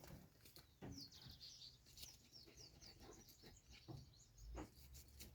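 Faint small-bird chirping: a quick run of short, high chirps in the first half, with a few faint clicks and knocks.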